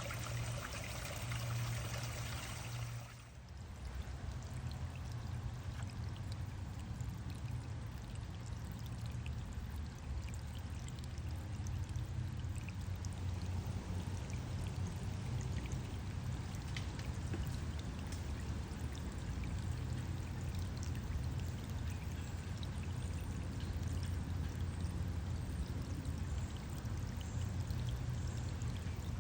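Steady rush of a woodland stream spilling over a small waterfall. About three seconds in it briefly dips, then carries on duller and deeper.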